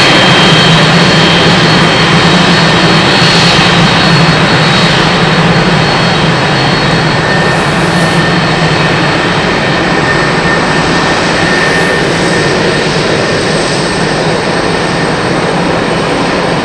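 Boeing 747-400's jet engines running at taxi power as the aircraft rolls past: a loud, steady jet rumble with a high whine that fades a few seconds in, the whole sound easing off slowly as it moves away.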